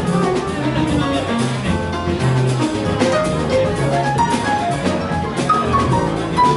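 A small jazz band playing live: saxophones, trombone, piano, double bass and drum kit, with a moving bass line under the horns and cymbals.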